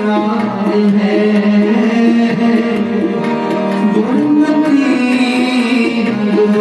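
Kirtan music: sustained harmonium chords over a steady tabla rhythm.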